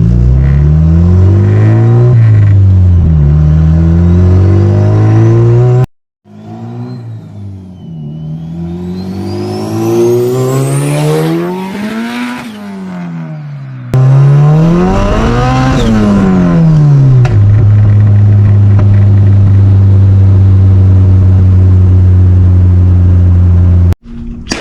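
Turbocharged Honda B-series four-cylinder on a straight-pipe exhaust, revving up and dropping back repeatedly as it is driven through the gears, then holding a steady drone for the last several seconds. A quieter stretch in the middle carries a high rising whine, and the sound cuts off abruptly a few times. At low revs the owner hears what sounds like a misfire, which he puts down to the straight pipe.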